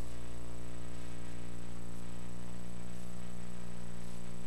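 Steady low electrical hum with a buzzy tone, holding unchanged.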